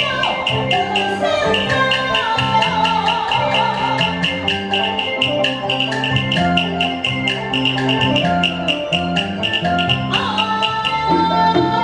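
Taiwanese opera instrumental accompaniment: a gliding melody over a steady, quick beat of sharp clapper-like clicks, about three to four a second.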